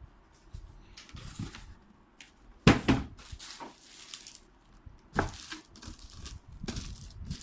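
Handling noise of unpacking: cardboard and plastic packaging being shifted and rustled, with several knocks. The loudest knock comes a little under three seconds in and another just after five seconds.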